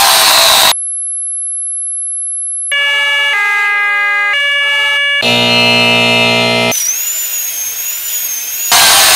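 A run of electronic sound effects, one after another: a steady, very high-pitched tone for about two seconds, then a few seconds of electronic tones stepping between pitches, a harsh low buzz for about a second and a half, and a wavering high whistle-like tone. A harsh, noisy sound comes before them and returns near the end.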